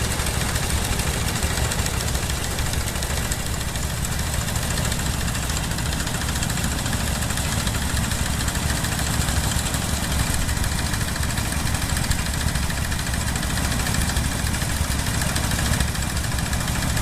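Engine of a farm machine used in the rice harvest running steadily at constant speed, a low, even engine sound with a fast, regular pulse and a hiss of mechanical noise above it.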